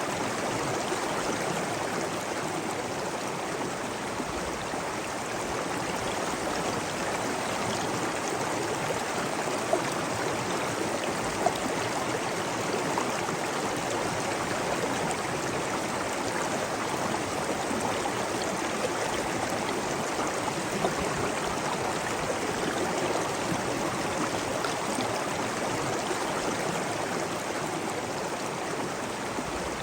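Steady running water, an even rushing flow, with a few short, sharper sounds in the middle.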